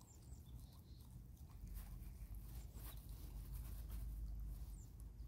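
Faint chewing of a cooked piece of pig testicle: soft, wet mouth clicks over a steady low rumble.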